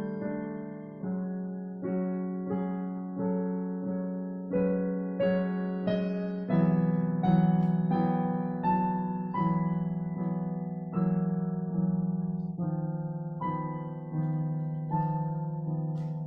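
Slow, gentle piano music: a melody of single notes, a new one struck about every two-thirds of a second and each fading away, over held low notes.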